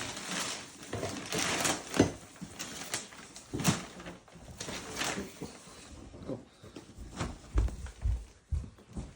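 Wrapping paper and tape rustling and tearing as a heavily wrapped gift box is unwrapped, in a series of uneven bursts, followed by a few low thumps of the box being handled near the end.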